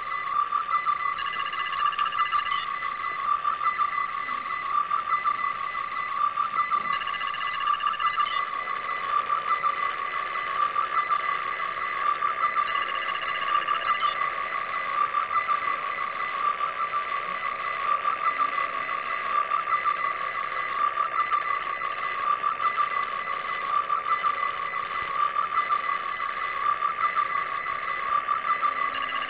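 Star Trek tricorder scanning sound effect: a steady, warbling electronic tone. A cluster of high electronic chirps comes three times, about six seconds apart, in the first half, and once more at the very end.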